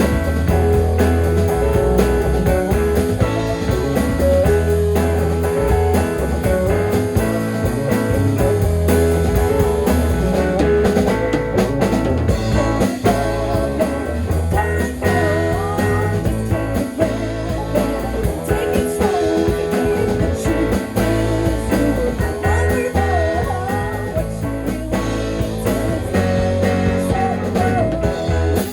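Live rock band playing, with guitar over bass and drum kit, and some bending pitched notes partway through.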